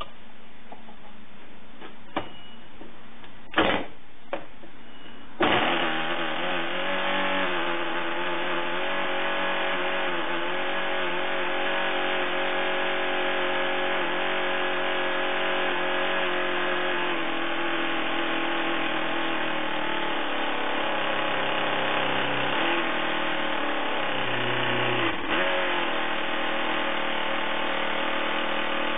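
Homemade 10 cc single-cylinder four-stroke glow-plug model engine with a propeller: a few sharp clicks as it is turned over, then about five seconds in it fires and runs steadily, its speed wavering slightly.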